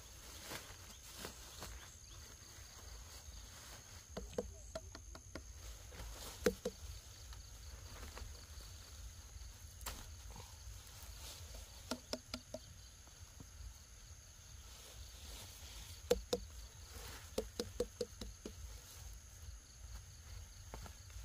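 Faint rural ambience: a steady high insect drone, with brief clusters of short low knocks or calls every few seconds, the sharpest about six and a half and sixteen seconds in.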